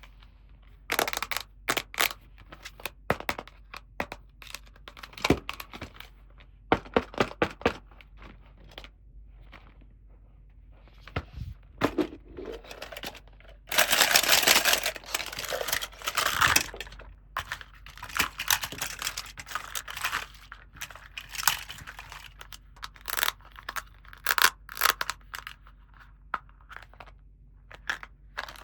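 Toy packaging being handled and opened: a run of sharp crinkles, clicks and crackles, with a longer, louder stretch of tearing and rustling in the middle.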